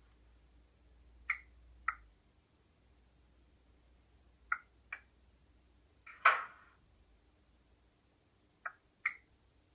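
A few sharp clicks, mostly in pairs about half a second apart, and one louder click with a short hiss about six seconds in.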